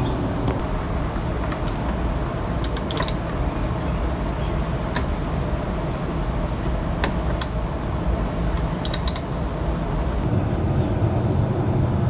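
Socket wrench with an extension working loose a 10 mm ignition-coil bolt: sharp metallic clicks, a quick cluster about three seconds in, single clicks around five and seven seconds, another cluster near nine seconds, over a steady low rumble.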